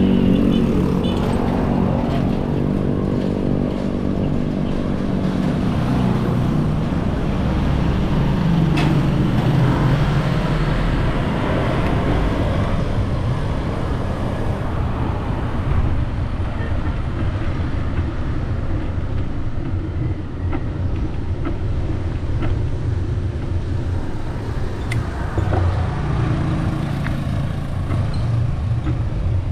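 Steady low rumble of wind and road noise from a vehicle riding along a concrete street. In the first few seconds a motor scooter passes going the other way, its engine note falling in pitch as it fades.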